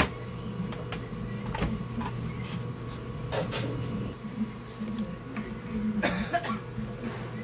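Scattered light clicks and scrapes from multimeter probes and hands working on a TV power board, over a steady low electrical hum.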